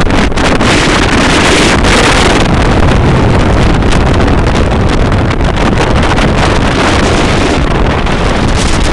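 Loud, steady wind noise on the microphone of a motorboat under way, mixed with the boat's engine and rushing water.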